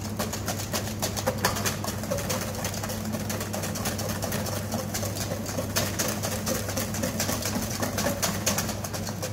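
Wire balloon whisk beating sabayon in a stainless steel bowl: rapid, rhythmic clicking and scraping of the wires against the metal as the egg mixture is whisked over simmering water to thicken without curdling. Under it runs a steady low hum.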